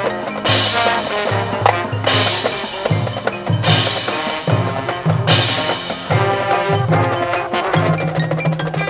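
High school marching band playing: brass over a drumline, with a pulsing bass line and four loud crashes about a second and a half apart.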